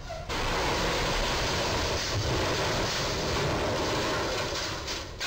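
White box truck's roof striking the steel railroad bridge and peeling off, heard through the traffic camera's microphone as a loud, steady rush of scraping, tearing noise that starts suddenly and lasts about five seconds, with no single sharp bang.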